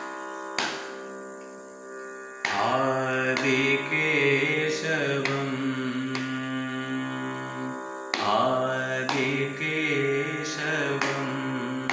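A male Carnatic vocalist singing melodic phrases in raga Vijayashree over a steady drone. Only the drone sounds at first; the voice comes in about two and a half seconds in, pauses briefly near the eight-second mark, then carries on.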